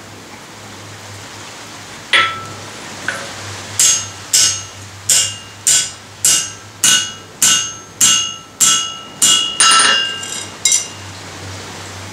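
Hand hammer striking a forge-welded steel bar on an anvil, about a dozen ringing metallic blows at roughly two a second, most of them between about four and eleven seconds in. The bar is being bent over cold to test whether the weld holds.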